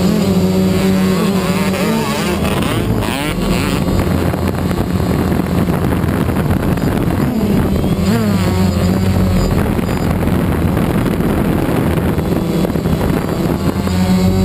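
Steady buzzing drone of a DJI Phantom quadcopter's motors and propellers, mixed with a motocross bike's engine revving up and down several times, with some wind on the microphone.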